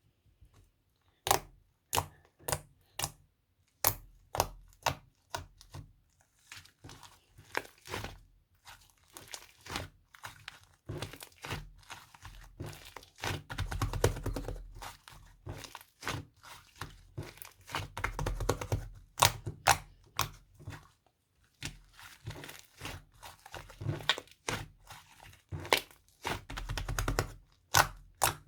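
Dalgona coffee mixture being whipped by hand, the utensil clicking and scraping against the bowl in quick, irregular strokes, with a few low rumbling stretches from handling along the way.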